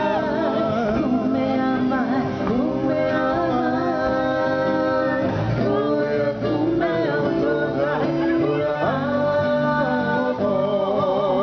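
Men's and women's voices singing together in a Māori song, with instrumental backing.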